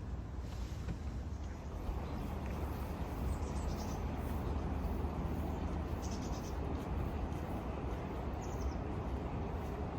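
Steady outdoor background noise with a low rumble, and a bird chirping briefly three times over it.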